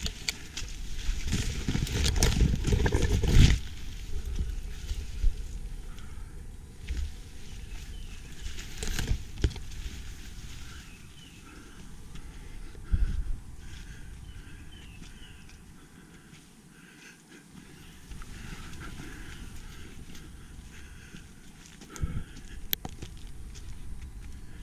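A hiker's footsteps, with scattered knocks and handling noise, loudest and heaviest in the first few seconds. Faint high bird calls come in the later part.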